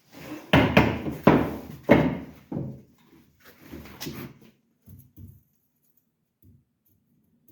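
A series of loud knocks or bangs, about one every half second, then a few softer ones that die out about five seconds in.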